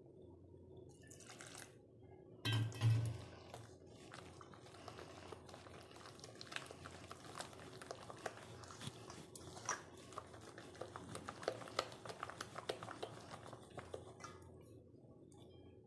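A hand working thick gram-flour batter in a steel bowl: wet squelching with many small irregular clicks, stopping about a second before the end. A couple of louder thumps come about three seconds in.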